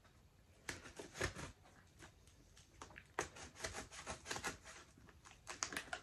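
Scissors scoring and scraping through packing tape on a cardboard box, with irregular scratches and light taps on the cardboard that come thicker from about halfway through.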